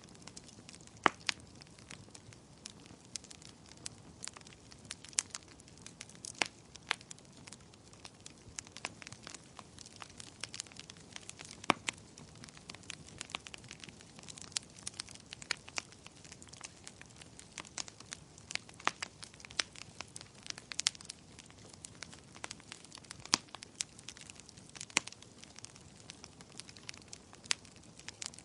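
Wood fire crackling in a fireplace: irregular sharp pops and snaps over a soft, steady hiss.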